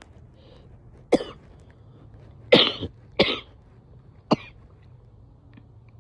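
A woman giving four separate wet coughs over about three seconds, the middle two the loudest.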